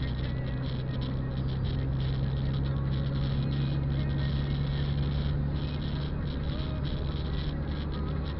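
Steady drone of a car driving on a wet road, heard inside the cabin: a constant low engine hum, which strengthens about a second in, under the hiss of tyres on the wet road.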